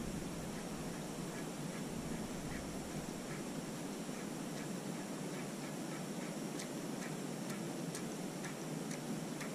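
Faint rhythmic ticking, about two ticks a second, from a fishing rod and reel as a topwater lure is twitched and retrieved, over a steady low hiss of wind. Sharper, brighter clicks join in the second half.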